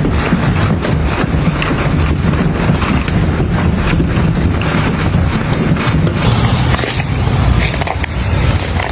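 Large hailstones pounding hard surfaces in a dense, continuous clatter of impacts.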